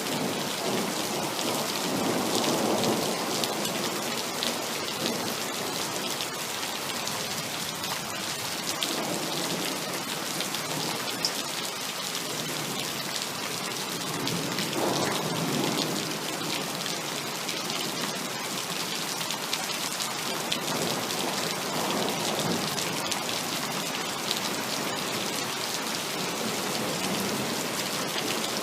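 Heavy rain pouring steadily, with thunder rumbling three times, about two seconds in, around the middle and again a few seconds later.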